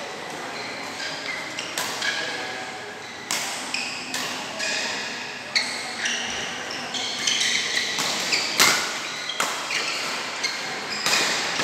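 Badminton rackets striking a shuttlecock in a doubles rally: repeated sharp hits, often more than one a second, with short squeaks of court shoes between them, echoing in a large hall.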